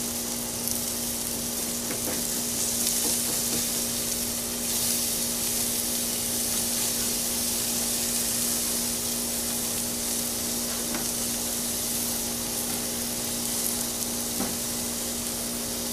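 Bison burger patties sizzling steadily on a hot grill grate as they are flipped with a spatula, with a steady low hum underneath.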